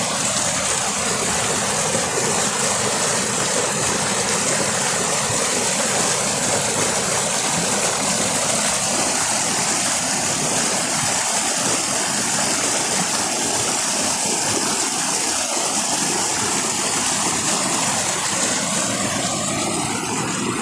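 Stream water rushing and splashing over boulders in small whitewater cascades, a steady, even rush.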